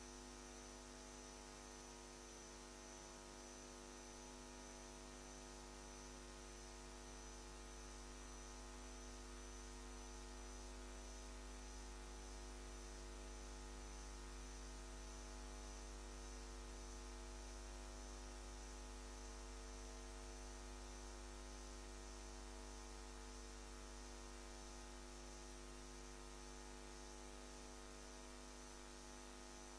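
Faint, steady electrical mains hum with several fixed tones layered over it, unchanging throughout.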